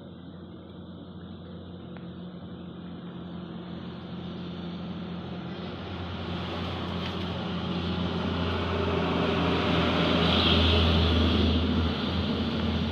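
Engine of a motor vehicle running steadily and growing louder over about ten seconds, loudest near the end.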